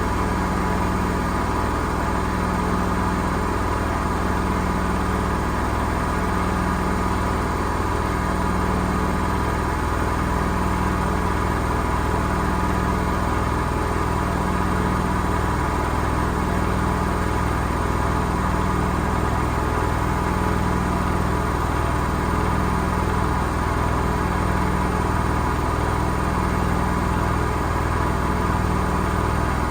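Gorenje SensoCare washing machine on its 1200 rpm spin, running with a steady rumble and a hum that swells and fades about every second and a half. The rumble comes from bad drum bearings.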